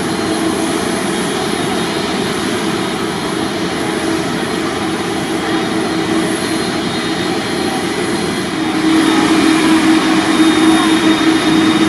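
Jet airliner engines running with a steady loud rush and a low steady tone, growing louder about nine seconds in.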